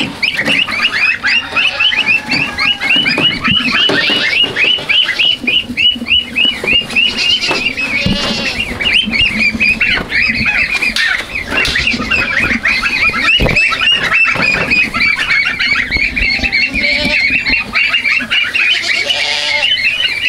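A flock of young ducks and geese calling without pause: a dense, rapid run of high peeping, with now and then a lower call.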